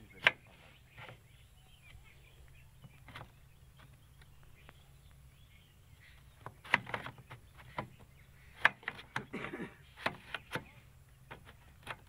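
Sheet-metal air-cleaner canister on a mini combine harvester being handled and fitted into its seat: one sharp clack just after the start, then a run of clinks, knocks and short scrapes in the second half.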